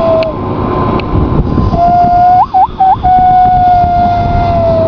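A person's whistled imitation of a common loon's wail: a long steady note, a quick yodel-like break up and down in pitch about two and a half seconds in, then the long note again, sagging slightly at the end.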